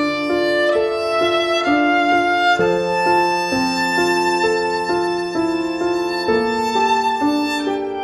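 Instrumental background music: a melody of quick, clearly pitched notes, changing two or three times a second, over held lower notes.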